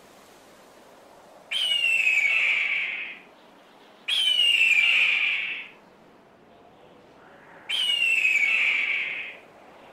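A hawk screaming three times, each a harsh, slightly falling call about a second and a half long, over a faint steady hiss.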